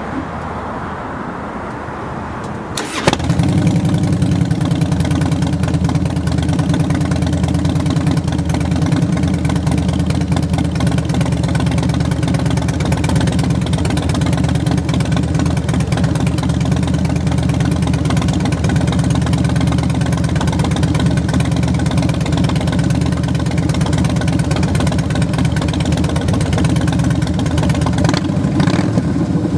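Harley-Davidson Heritage Softail Classic's Twin Cam 88B V-twin through Vance & Hines Big Shots Staggered pipes: the starter cranks for about three seconds, then the engine fires and settles into a steady idle.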